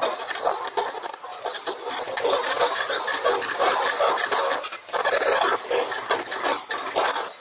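Rapid, continuous scratching of a small metal pick against a fishing reel's metal spool as salt deposits are scraped off, with a brief pause about five seconds in.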